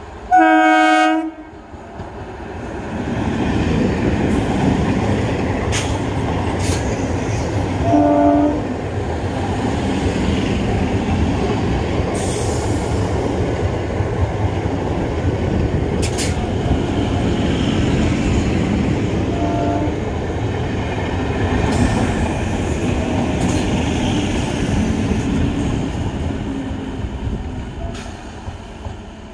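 EMU electric local train sounding one loud horn blast, then running past close by at speed with a steady rumble and clicking of wheels over rail joints. Two shorter horn blasts come later, the second faint, and the rumble fades near the end.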